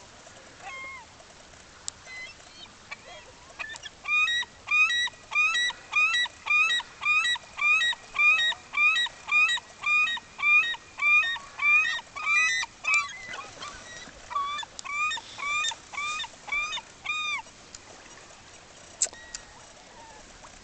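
Seagulls calling: a long run of loud, repeated calls, about two a second, starting about four seconds in. It pauses briefly, then a second, fainter run of the same calls follows.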